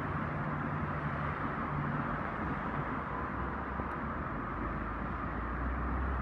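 Steady city street ambience: a low hum of traffic under an even hiss.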